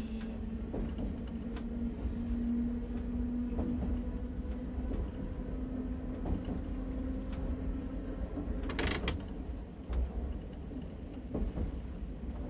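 Small electric train of the Choshi Electric Railway running along the track: a steady low rumble with a held motor hum, occasional light clicks, and a brief hiss about nine seconds in.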